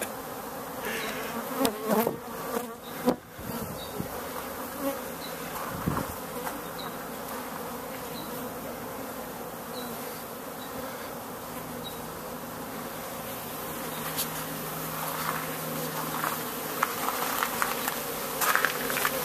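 Honeybees buzzing in a steady swarming drone close around the microphone, with a few sharp knocks in the first few seconds; the buzzing grows a little louder near the end.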